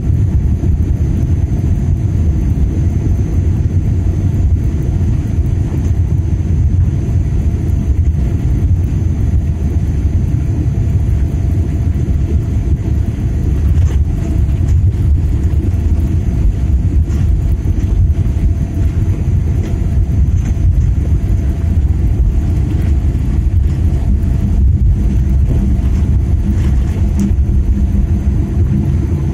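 Jet airliner cabin noise heard from a window seat as the plane rolls along the runway: a loud, steady low rumble of engines and wheels, with a faint steady hum above it.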